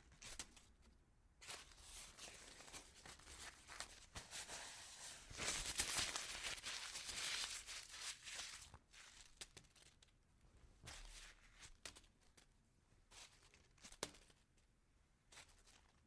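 Paper being crunched and crumpled, crackling irregularly. It is densest and loudest from about five to nine seconds in, then thins to scattered crinkles and clicks.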